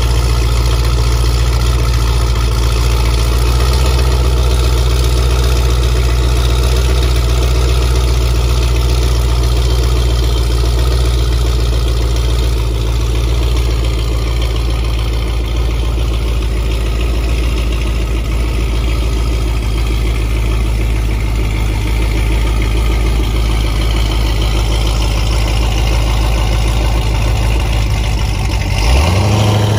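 Modified Jeep Grand Cherokee Trackhawk's supercharged 6.2-litre Hemi V8, fitted with an aftermarket camshaft, idling steadily through its exhaust. Near the end the engine note rises briefly as it revs.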